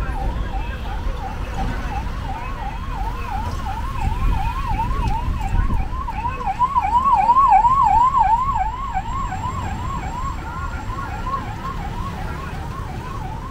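Electronic warning siren at a railway level crossing, a fast repeating rising-and-falling wail several times a second, loudest about halfway through, over a low rumble.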